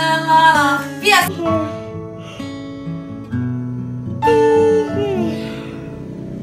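Acoustic guitar music playing. A high, wavering vocal sound is heard in the first second, and another pitched vocal sound about four seconds in lasts about a second and slides down at its end.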